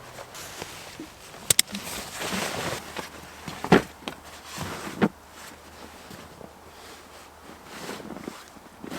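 Rustling and handling noises with scattered knocks and a sharp double click about a second and a half in, quieter in the second half.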